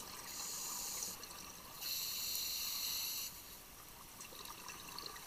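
A scuba diver breathing through a regulator underwater: two rushing, hissing bursts of breath and bubbles, the second longer, over a faint crackling background.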